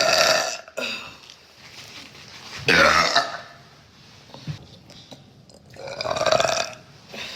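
A girl burping loudly three times: a long burp that trails off just under a second in, then two more, near three seconds and six seconds in.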